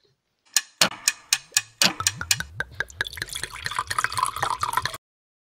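Short outro sting over the logo card. A quickening run of sharp plinks, about four a second, plays over stepping bass notes, then gives way to a denser hissing wash, and it all cuts off abruptly about five seconds in.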